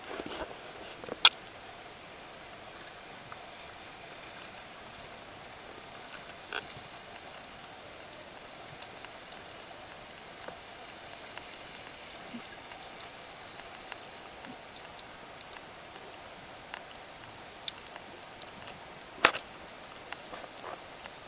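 Underwater sound picked up by a diver's camera: a steady hiss with scattered sharp clicks, the loudest about a second in and again about two seconds before the end.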